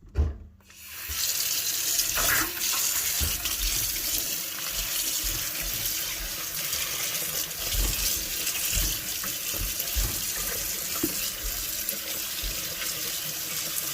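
Kitchen tap running into a sink, a steady rush of water that starts about a second in, with a sharp thump at the very start and scattered low knocks.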